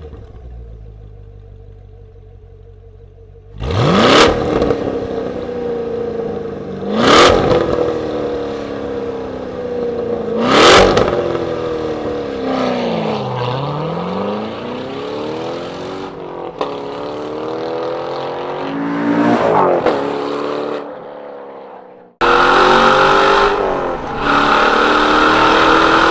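Chevrolet Corvette C7's 6.2-litre V8 through a Borla ATAK exhaust, driven hard on a track. It runs low and quietly for a few seconds, then accelerates hard through the gears with three sharp shifts. The revs then drop away under braking with blips on the downshifts. Near the end it turns abruptly louder into a steady high-rev run.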